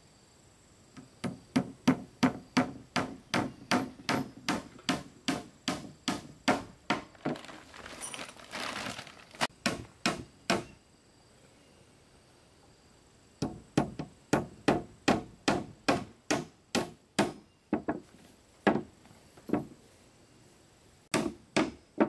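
A hand tool striking repeatedly and sharply, about three blows a second, in two long runs with a pause between and a few single blows near the end. A brief scraping rustle comes about eight seconds in.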